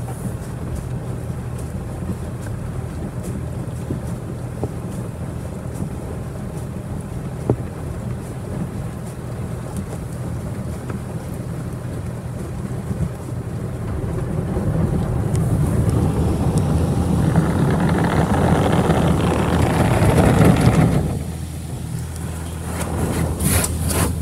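Autec Evolution automatic car wash heard from inside the car: high-pressure water jets spraying and drumming on the body and windshield over a steady low hum from the wash machinery. The spray grows steadily louder about two-thirds of the way in, then cuts off suddenly, and near the end a quick run of rhythmic swishes begins.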